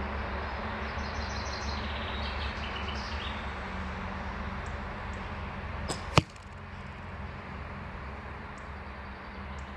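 An arrow shot from a Samick SHT 40 lb recurve bow strikes the archery target with one sharp, loud thud about six seconds in. A faint click comes a moment before it.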